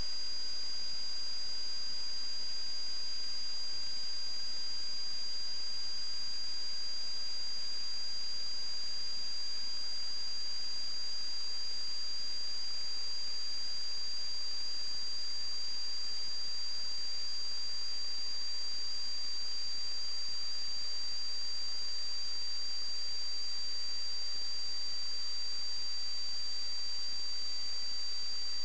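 Steady high-pitched electronic whine over a constant hiss, with a fainter tone slowly rising in pitch, from the sewer inspection camera recorder's audio while it shows no picture.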